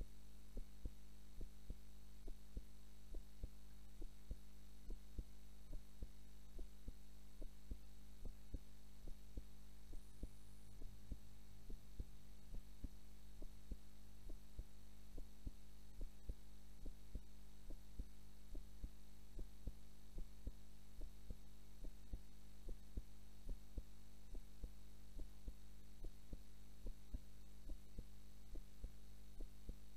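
A woman's heartbeat heard close up, a regular thump about once a second over a steady low hum: her resting heart rate as she sleeps.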